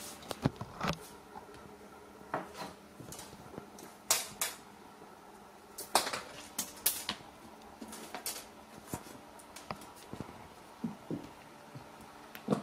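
Irregular sharp clicks and clinks as a Ragdoll kitten plays with a toy on the floor, about a dozen scattered taps. The loudest come about four and six seconds in.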